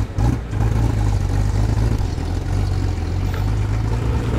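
Steady, deep low-rev engine rumble of cars crawling forward: a modified early-1960s Holden ute pulling slowly away with a Ford Mustang GT idling behind it.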